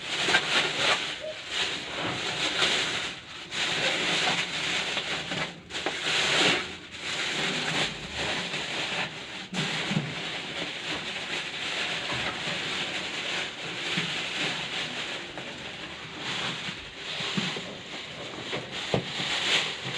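Unboxing packaging being handled: plastic wrapping and packing material rustling and rubbing in uneven strokes, with a few short breaks.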